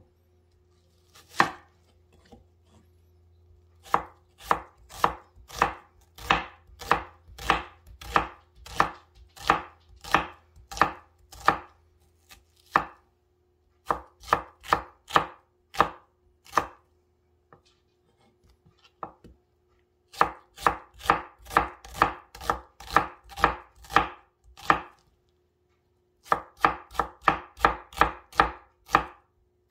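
A santoku knife slicing an onion on a wooden cutting board: sharp knocks of the blade hitting the board at about two a second, in runs broken by short pauses.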